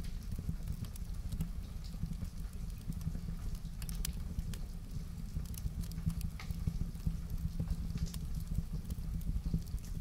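Wood fire in a fireplace crackling, with scattered sharp pops at irregular moments over a steady low rumble.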